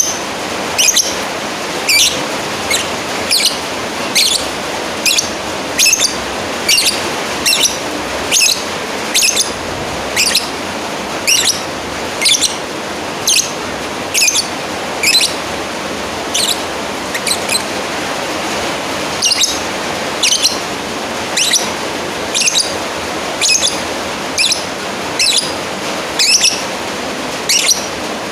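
Lovebird giving short, sharp, high-pitched chirping calls, repeated about one to two times a second over a steady background hiss: a challenge call to a rival bird.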